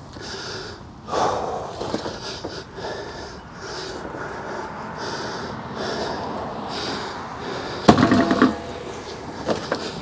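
A hand truck carrying a heavy metal HVAC condenser rolls over a concrete driveway, with continuous rolling and scraping noise. About eight seconds in there is a loud metallic clank and rattle.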